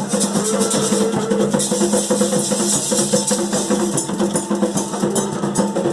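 Candomblé ceremonial drumming, atabaque hand drums beating a dense, steady rhythm.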